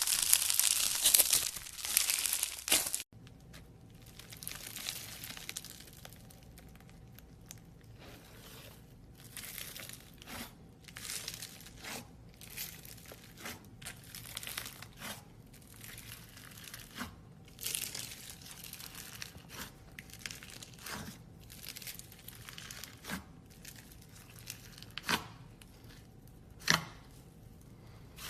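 Slime being squished and stretched by hand: a loud, dense crinkly crackling for about three seconds, then it cuts off. Softer scattered sticky crackles and pops follow, with a few sharp clicks near the end.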